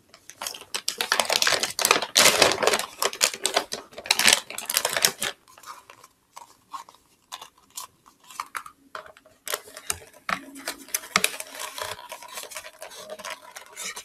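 Bird seed and its plastic bag being handled, and seed poured through a paper cone into a plastic bottle: dense rattling and rustling for about five seconds, then sparser small clicks and ticks.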